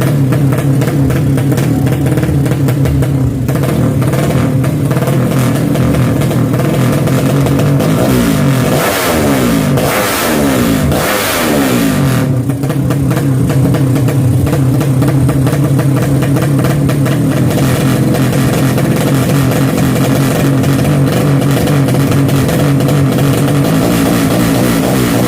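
Drag-racing motorcycle engines running loudly at a steady pitch, with revs rising and falling several times from about eight to twelve seconds in.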